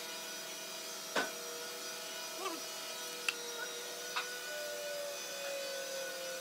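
Steady hum of workshop machinery, with a few short sharp clicks and taps as filler paste is worked onto a hardwood board with a wooden stick. In the last couple of seconds a thin whine comes in and slowly falls in pitch.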